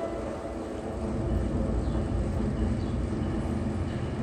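NJ Transit ALP-45DP locomotive approaching with its commuter train: a steady low rumble that grows a little louder after about a second.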